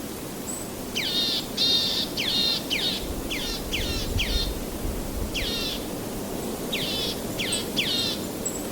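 A bird calling in quick runs of short, sharply falling notes, four or five at a time with brief pauses between runs, over a steady rushing background.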